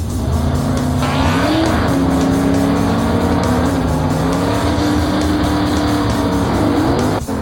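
Cartoon vehicle engine sound effect: the engine revs up about a second in and then runs at a steady pitch, over background music with a steady beat, cutting off just before the end.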